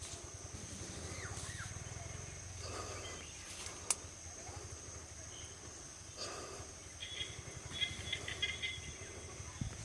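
Outdoor ambience: a steady high-pitched drone over a low rumble, with a sharp click about four seconds in and a run of short chirping notes near the end.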